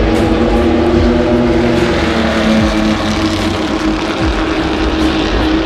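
Racing car engine running at steady revs on the circuit, a loud continuous drone with no clear rise or fall.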